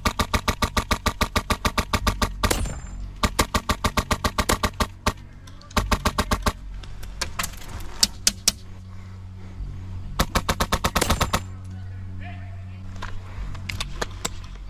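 Airsoft guns firing rapid full-auto bursts, about ten shots a second: a long burst at the start, another soon after, then shorter bursts and single shots, and a last burst about ten seconds in.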